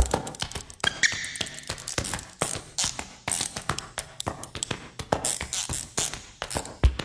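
Percussive electronic music track in a sparse passage of rapid clicks and taps, without the heavy kick drum that beats around it.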